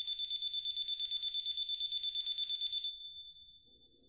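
A ringing sound effect like a telephone bell: two high tones with a fast trill, which stops about three seconds in, the higher tone fading out a moment later.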